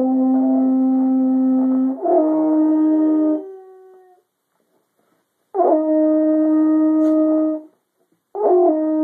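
Long held notes on a baritone horn with a dog howling along in pitch, the howls sliding into each note. The sound breaks off for about a second around the middle, then comes back with more held notes.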